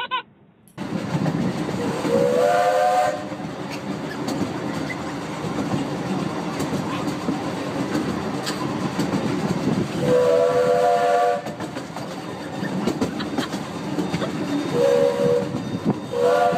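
A train running close by, with the steady rumble and clatter of the cars and a multi-note air horn sounding four times: two long blasts, a short one, and a last one that starts near the end.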